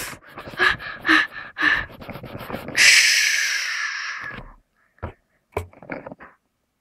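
A girl's quick, heavy breathing, several breaths in a row, then a longer hissing exhale that fades away. Near the end come a few light clicks of a small plastic toy figure being handled.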